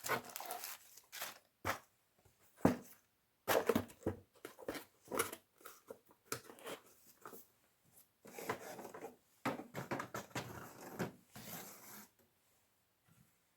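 Small items and packets being handled and moved about: irregular rustling with sharp knocks and clicks.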